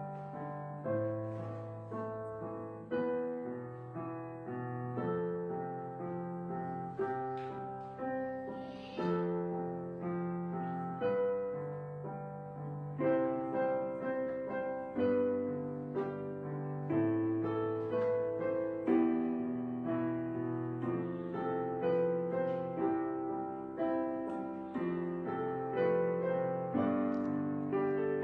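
Background piano music: slow, gentle chords, a new note or chord struck about every second or two and left to ring.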